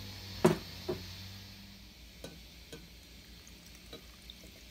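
A spatula knocking sharply against a ceramic pot, two knocks about half a second apart with the first the loudest, followed by a few lighter clicks of kitchen utensils.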